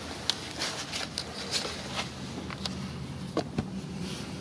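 A low, steady mechanical hum, with scattered light clicks and a couple of sharper taps about three and a half seconds in.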